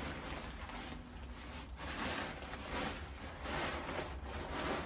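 The folded fabric of an inflatable paint booth rustling as it is handled and unfolded, in a run of short swishes about one or two a second.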